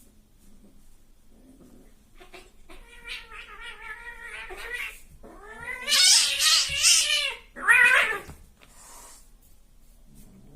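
Domestic cats caterwauling in a fight: a drawn-out, wavering yowl that grows louder and is loudest about six to seven seconds in, then a short, sharp screech at about eight seconds.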